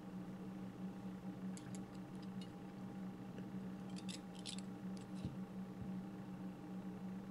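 Faint small metallic clicks and scrapes of a thin screwdriver rod working stainless steel wire coils on a rebuildable dripping atomizer's deck. They come in a short cluster about two seconds in and a denser one around four to five seconds in, over a steady low hum.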